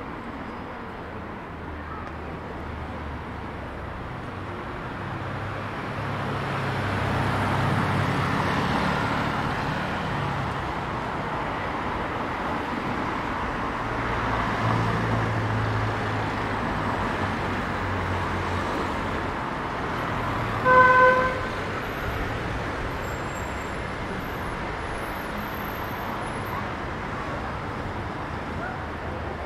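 City street traffic: cars driving past, their rumble swelling twice as vehicles go by. A single short vehicle horn toot about two-thirds of the way through is the loudest sound.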